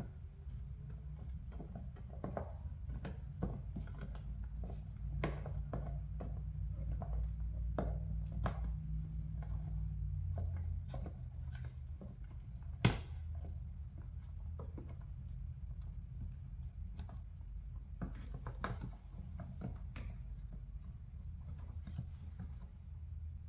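Small scattered clicks and taps of a screwdriver and plastic mirror trim being worked loose on a car's side mirror, with one sharper click about 13 seconds in, over a low steady hum.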